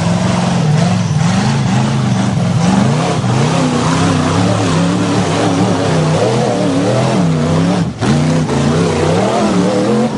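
Off-road 4x4 vehicle engine revving up and down over and over, with the pitch rising and falling every second or so. The sound breaks off briefly about eight seconds in and then carries on.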